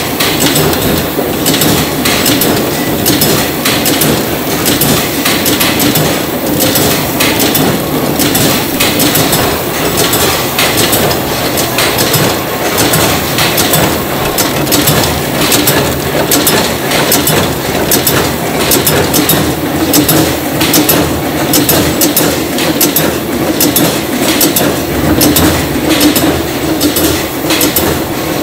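Food-factory packaging and conveyor machinery running: a loud, continuous clatter of rapid clicks and knocks over a steady mechanical din.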